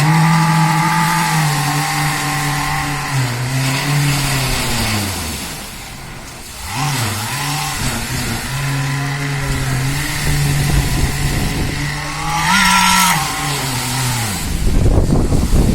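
A heavy engine of the concrete equipment running steadily. It eases off about five seconds in and picks up again a second or so later. A louder rumbling noise joins near the end.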